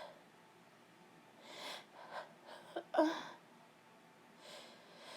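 A woman with a cold catching her breath during a sneezing fit: a few short, noisy breaths and a short voiced gasp about three seconds in.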